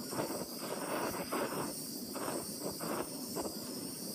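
Handheld gas torch burning, its flame giving a steady hiss with an uneven flutter as it plays on a copper disc being annealed; the torch is running low on fuel.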